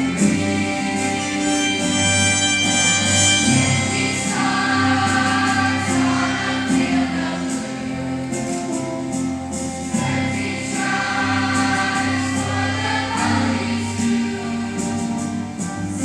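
A middle/high school choir singing a patriotic song in chorus, holding long sustained notes.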